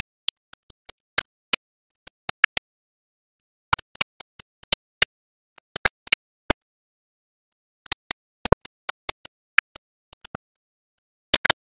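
Sharp, irregular clicks with dead silence between them, from the automatic pin insertion machine's head pressing press-fit pins into a printed circuit board.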